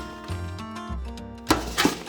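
Background music with a bass line and sharp percussive hits about one and a half seconds in.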